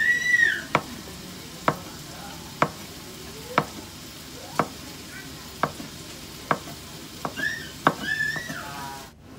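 Kitchen knife slicing through a rolled egg omelette and knocking on a wooden cutting board, one sharp knock about every second. A high, wavering squeal sounds briefly at the start and again near the end.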